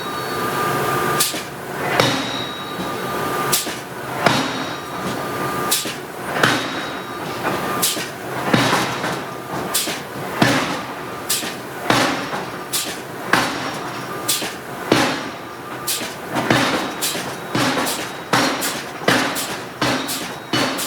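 Hydraulic forging hammer striking hot steel in a long series of sharp blows, about one to two a second and settling into a more even rhythm, with a thin metallic ringing tone in the first few seconds.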